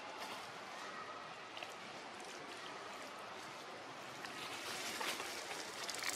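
Dry fallen leaves rustling and crackling under a baby macaque crawling over them, over a steady outdoor hiss; the rustling grows louder near the end.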